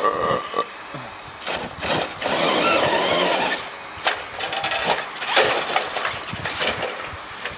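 Remote-control truck's motor running in two bursts of driving, its pitch rising and falling, with a sharp click between them.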